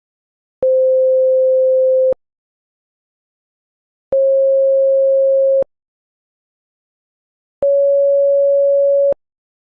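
Three electronic pure tones, each about a second and a half long with silences of about two seconds between them, each a little higher in pitch than the one before. Each tone starts and stops with a click.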